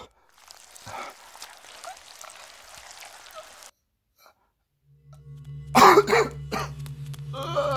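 A man in pain coughs harshly about six seconds in, then begins a drawn-out moan near the end. A low, steady drone of film score comes in under it about five seconds in.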